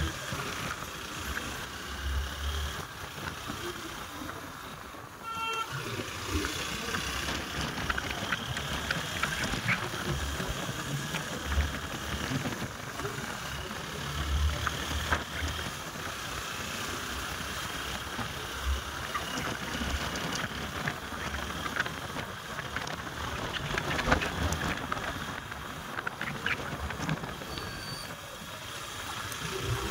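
Road traffic noise with a short vehicle horn beep about five seconds in.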